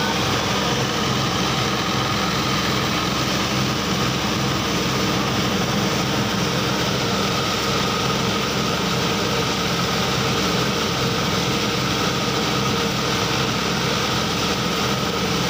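Portable rice thresher (mesin perontok padi) running steadily, its small engine driving the threshing drum as bundles of harvested rice stalks are fed in.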